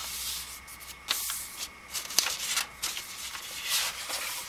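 A sheet of paper being folded and creased by hand on a cutting mat: rustling and sliding, with a few sharp crackles as the fold is pressed down.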